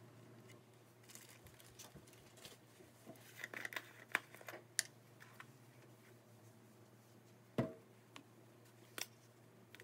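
Faint scattered clicks and taps of a metal spoon and spice containers being handled as seasonings are spooned into a bowl, with one louder knock about three-quarters of the way through.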